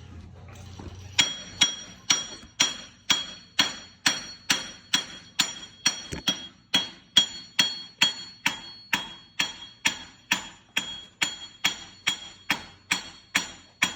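A hammer striking a steel suspension part in a steady rhythm, about two blows a second, each blow leaving a bright metallic ring. It is part of knocking suspension components loose during a teardown.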